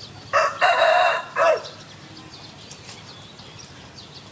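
Rooster crowing once: a single cock-a-doodle-doo about a second and a half long, in three parts with the long middle note loudest.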